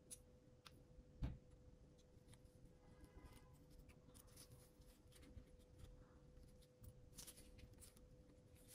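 Faint clicks and light scratching of small tools handling the parts of a DJI Mini 3 Pro drone gimbal, with one soft thump about a second in, over a steady faint hum.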